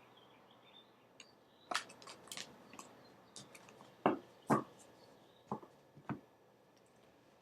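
Tarot cards and their guidebook being handled: a string of short, irregular clicks and taps. A few louder knocks fall in the middle.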